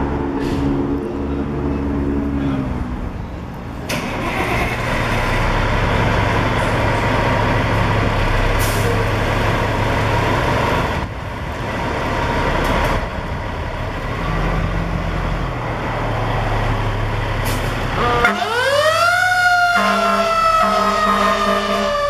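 Fire engine's diesel engine running as the rig pulls out of the station. About eighteen seconds in, its siren starts up, rising sharply in pitch and then falling slowly.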